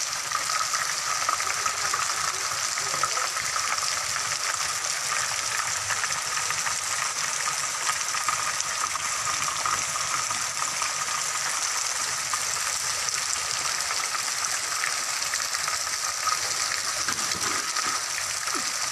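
Heavy typhoon rain falling steadily, a dense, even hiss that does not let up.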